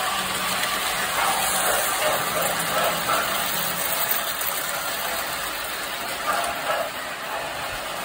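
Tinplate toy freight train running on three-rail steel track, a steady rolling rattle of wheels and motor gearing.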